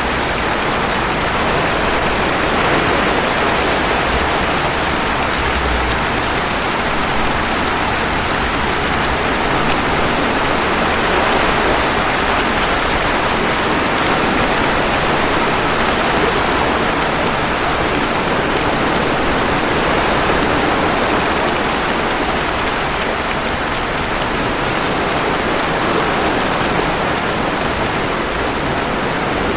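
Steady rain: a dense, even hiss of falling drops that holds level without swelling or easing.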